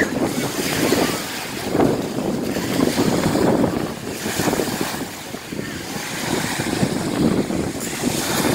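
Bora wind buffeting the microphone in gusts, over waves breaking and washing onto a pebble beach.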